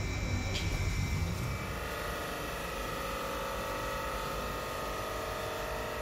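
Sabroe ammonia screw compressor and its electric drive motor running: a steady machine hum with several steady whining tones. About a second and a half in, the low rumble eases and higher whines come forward.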